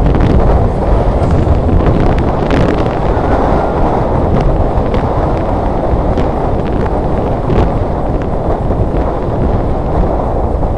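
Wind buffeting the camera microphone during a bike ride: a loud, steady low rumble of noise, with a few faint clicks or rattles.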